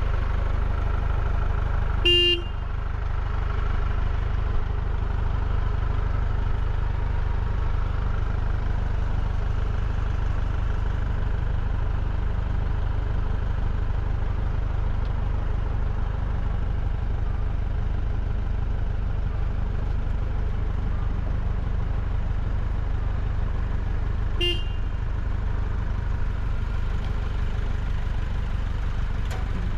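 An engine idling steadily with a low rumble, and two short horn-like toots, one about two seconds in and one near the end.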